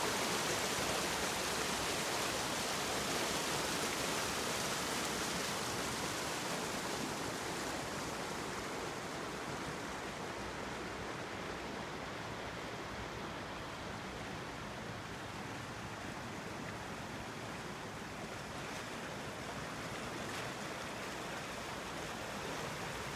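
Small rocky brook rushing steadily over stones and a low cascade. The water noise grows fainter and duller partway through and comes up slightly again near the end.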